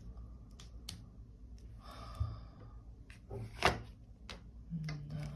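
Light clicks and taps of tarot cards being handled on a table, with a short rustle about two seconds in and a sharper tap a little after three and a half seconds; a voice starts near the end.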